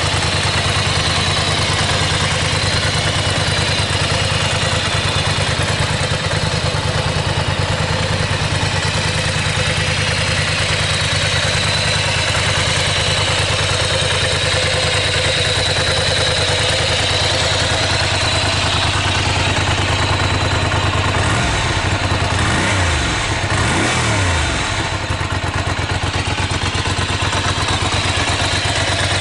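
Ducati Monster 400's air-cooled L-twin idling steadily through its stock exhaust. A few short throttle blips rise and fall about three quarters of the way through.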